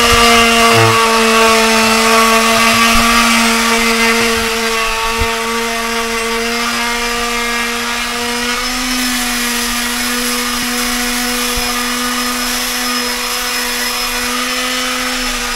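Small handheld corded power tool running with a steady hum, its blade working along a door frame to scrape off old sealant and finish. The motor eases slightly about four seconds in.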